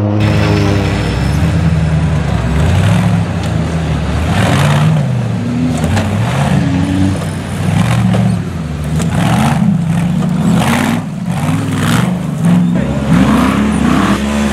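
Off-road trial competition vehicles' engines, UTV buggies and a tube-frame rock crawler, revved hard over and over, the pitch rising and falling as they work over rough ground.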